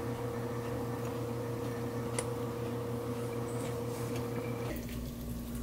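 Steady low mechanical hum, dropping to a lower tone near the end, with one faint click about two seconds in.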